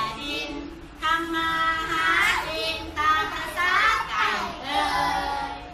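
Young children singing a song, in held sung phrases with short breaks between them.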